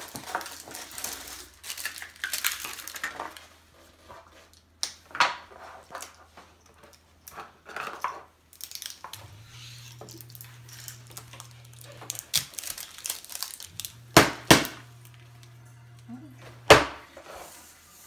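Plastic toy packaging crinkling and rustling as it is handled, then scattered clicks and clacks of small hard plastic pieces, with three sharp knocks in the last few seconds.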